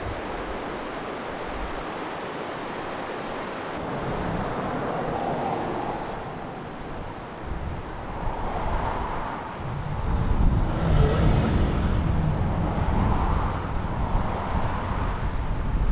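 Steady rushing outdoor noise with wind buffeting the microphone, the low rumble heavier from about ten seconds in.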